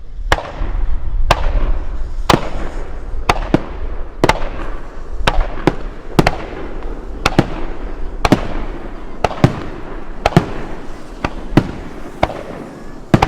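Aerial firework shells bursting in quick succession, sharp reports about once a second with some coming in quick pairs, over a continuous rumble.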